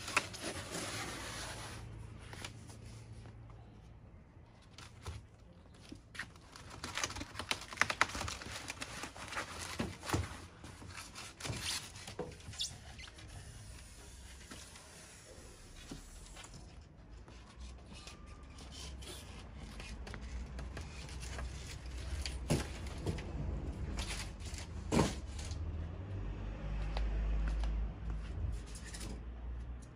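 Packaging being torn and handled: irregular rustling and tearing with scattered sharp clicks and knocks, and a low rumble near the end.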